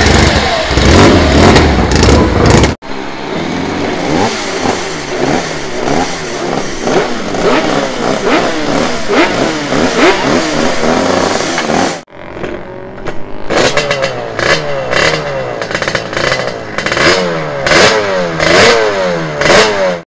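Racing motorcycle engines revved on paddock stands, in three cut-together takes. First a Norton racer revs hard. About three seconds in comes a two-stroke Aprilia racer blipped over and over, its revs rising and falling. About twelve seconds in comes a Yamaha racer revved in quick repeated blips.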